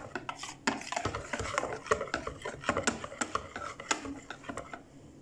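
Wire whisk beating batter in a plastic bowl: a fast run of clicking, scraping strokes that thins out and fades near the end.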